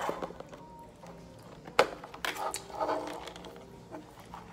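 Hands handling a can of mixed nuts on a table, with one sharp click about two seconds in as the snap-on plastic lid comes off.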